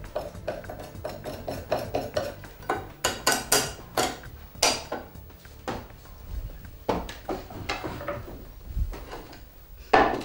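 Kitchen knife scraping chopped food off a wooden cutting board into a saucepan: a run of quick small scrapes, then several louder sharp knocks of knife and board against the pot about 3 to 5 seconds in, then scattered clatters, with a loud one near the end.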